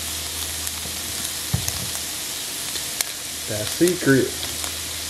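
Ground beef frying in a hot skillet with a steady sizzle. A low knock comes about a second and a half in.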